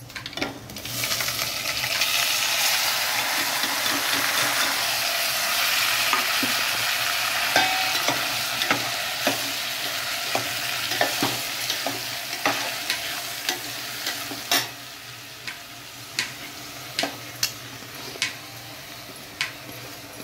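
Rice, green peas, tomato and spice powders tipped into hot oil tempering in a steel pot, sizzling as they hit the oil, and stirred with a metal spoon that clicks and scrapes against the pot. The sizzle dies down about two-thirds of the way through, leaving mostly spoon clicks and scrapes.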